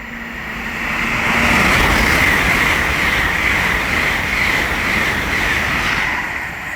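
LNER Azuma (Class 800) passing through at speed: a rush of wheel and air noise that builds over the first second or two, stays loud for several seconds, then eases near the end.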